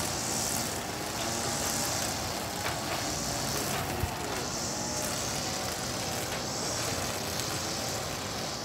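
Outdoor city ambience: steady distant traffic noise, with a high hiss that swells and fades every couple of seconds.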